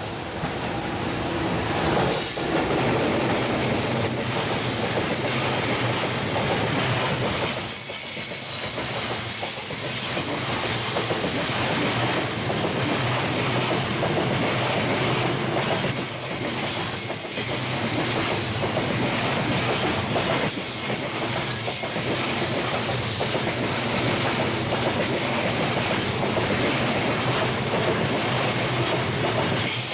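Freight train hauled by an EF210 electric and a DE10 diesel locomotive passing close by, its wheels clattering over the rail joints with some wheel squeal. The sound swells over the first couple of seconds and then holds steady as the wagons roll past.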